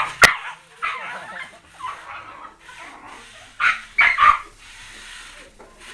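Dog barking and yipping in short bursts while being teased in rough play, with a couple of sharp knocks right at the start and the loudest barks, three close together, about four seconds in.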